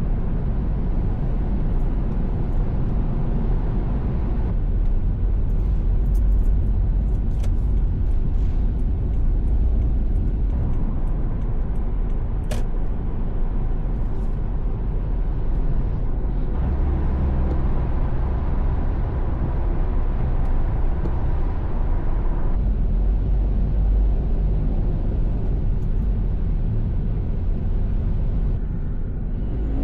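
Steady low rumble of a vehicle driving at speed, road and engine noise, whose character shifts abruptly about every six seconds.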